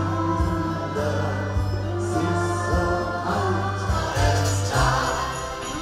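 Choral music: a choir singing over a steady bass line and sustained chords.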